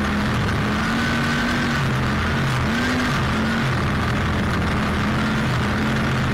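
Gas string trimmer running steadily with its line cutting grass, the engine pitch dipping and rising slightly.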